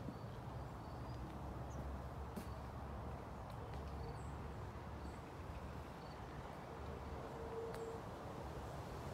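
Outdoor garden ambience: a steady low rumble with faint, short bird chirps scattered throughout and a few soft clicks.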